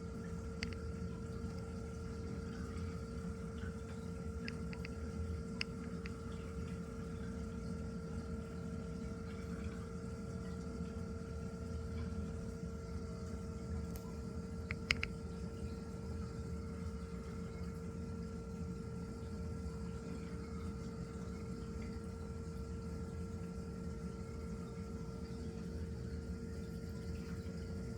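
Steady hum of aquarium pumps and circulating water, with a constant whine and a few faint ticks.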